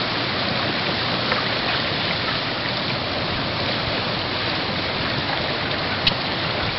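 Ice-jammed creek running high: a steady rush of water carrying broken ice slabs, with one sharp knock near the end.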